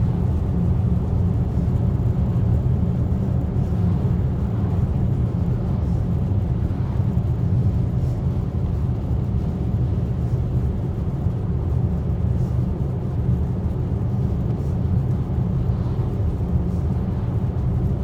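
Steady low rumble of a car in motion, heard inside the cabin: tyre and engine noise on a snow-covered road.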